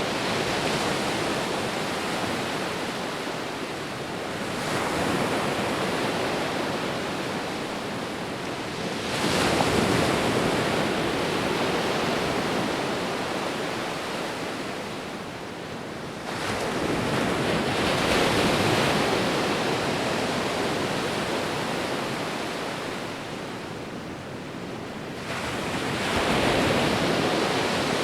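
Sea waves breaking on the shore: four waves surge in several seconds apart, each swelling and then fading back into a steady wash of surf.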